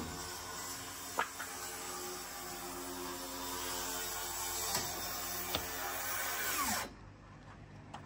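Circular saw running steadily, with a few sharp knocks along the way, then winding down quickly to a stop near the end.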